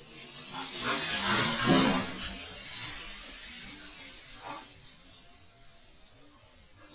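A whole bucket of water thrown onto a tiled roof, splashing and rushing off the roof edge. It swells about a second in, is loudest for a couple of seconds, then dies away to a low hiss.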